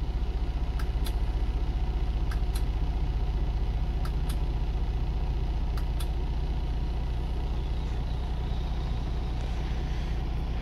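Freightliner Cascadia semi-truck's diesel engine idling steadily, heard from inside the cab as an even low rumble. Faint clicks come in pairs about every one and a half to two seconds.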